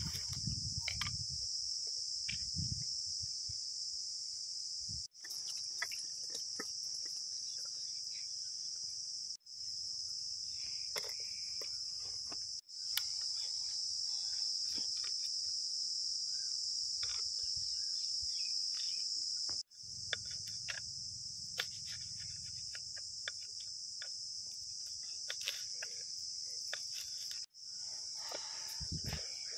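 Steady high-pitched chirring of insects, which drops out suddenly and briefly five times. Under it, light clicks of a knife chopping green chillies on a wooden chopping board.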